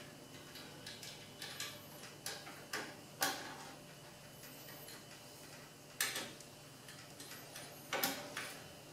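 Wiring connector plugs being pushed back onto an espresso machine's main circuit board: a scatter of small clicks and knocks as plugs seat and wires are handled, the sharpest about three, six and eight seconds in, over a faint steady hum.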